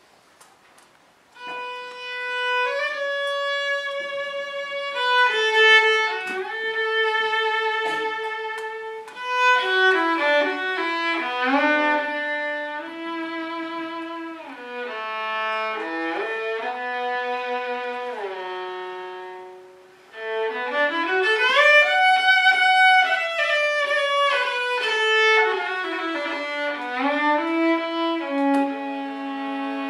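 Solo violin bowed in a slow melody of long held notes, with sliding pitch glides. It starts about a second and a half in, dips briefly near the middle and then climbs back up in pitch.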